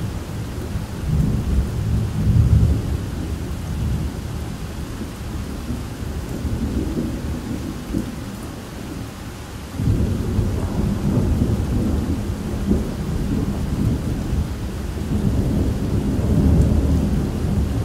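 Thunderstorm: thunder rolling and rumbling over steady rain. The rumble eases, then a new peal breaks in suddenly about ten seconds in and swells again near the end.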